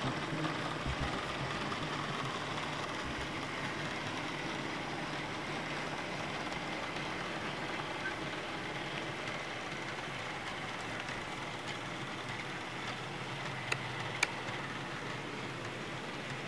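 Lima OO-gauge model diesel locomotive running along the track, its electric motor and wheels giving a steady whirr, with two sharp clicks close together about three-quarters of the way through.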